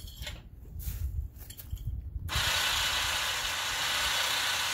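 A 2,500 lb electric winch on an engine hoist, switched on about halfway through and running steadily for about three seconds, drawing in its cable. Before it starts there are a few light clicks and rustles as straps are handled at the load.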